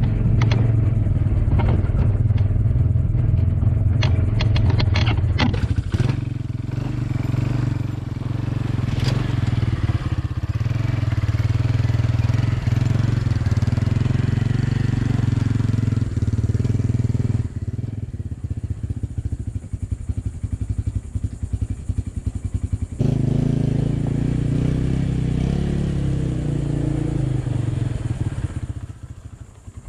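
An engine running steadily, its note changing about 17 seconds in and again about 23 seconds in, with a run of sharp clicks during the first six seconds.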